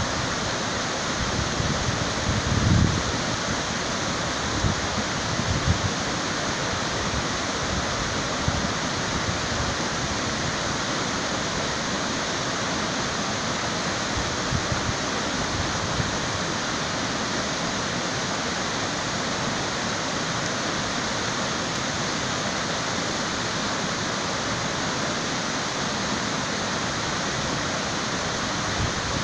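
Steady rush of water flowing below a concrete dam, an even, unbroken noise, with a couple of low bumps on the microphone in the first six seconds.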